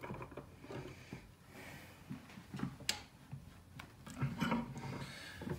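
A few faint metal clicks and knocks, the loudest about three seconds in, as a bolt is repositioned in a bench vise.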